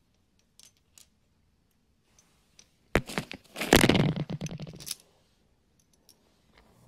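A few faint clicks, then about three seconds in a loud spell of clicking, clatter and rubbing lasting some two seconds, as small steel lug nut and seat adapter parts are picked up and handled right against the microphone.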